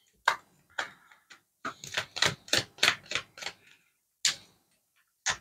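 A quick, irregular run of light clicks or taps, about a dozen, most of them bunched together in the middle.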